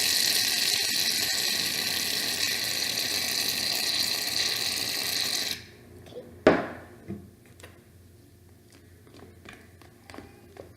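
A steady rushing noise cuts off abruptly about five and a half seconds in, followed by scattered clicks and knocks of small objects being handled, the loudest a sharp knock about a second after the noise stops.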